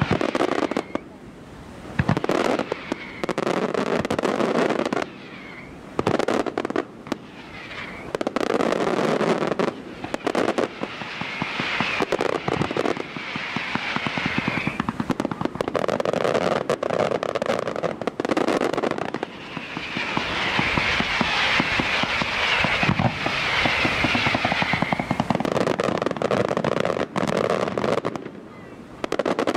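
Professional fireworks display: a rapid string of aerial shell bursts with crackling, in waves that thicken around the middle and again in the last third, with brief lulls between.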